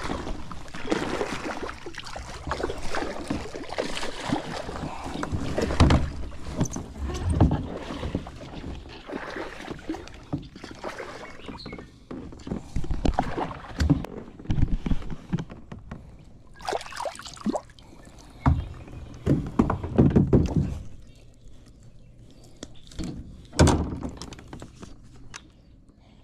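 A hooked bass splashing and thrashing at the water's surface during the fight, with irregular thumps and knocks against the plastic kayak hull as it is brought aboard. The knocks are sharpest in the second half.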